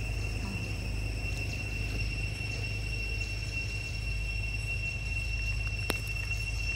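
Steady high-pitched insect drone over a constant low rumble, with a single sharp click about six seconds in.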